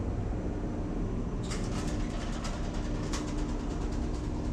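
Steady drone of an oil tanker's engine-room machinery, with a low steady hum running through it. From about a second and a half in until about three seconds, a run of light clicks and rattles sounds over it.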